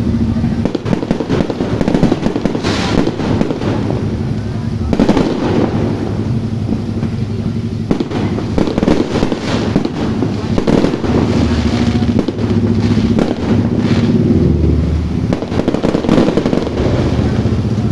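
A multi-shot fireworks cake going off in a rapid, continuous string of bangs and crackles, shot after shot without a pause.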